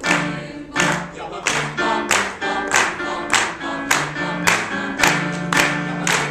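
School choir singing while clapping a steady beat in time, about three claps a second.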